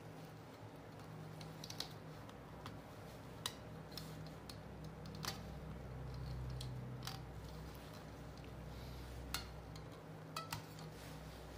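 Light, irregular clicks and ticks as thread is hooked and pulled taut around the metal nails of a string art board, about one every second or two, over a faint steady low hum.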